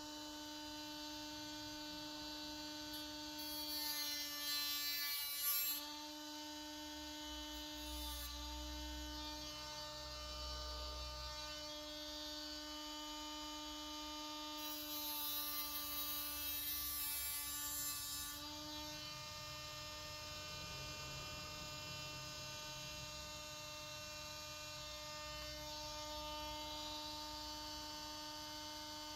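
Compact cordless angle grinder running with a steady whine, its disc grinding against the grille in two louder stretches, about three seconds in and again around fifteen to eighteen seconds in.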